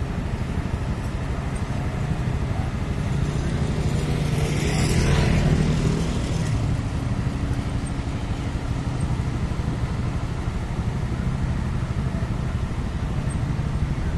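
Sakai road roller's diesel engine running steadily as the roller works over compacted soil. A louder passing sound swells and fades around five seconds in.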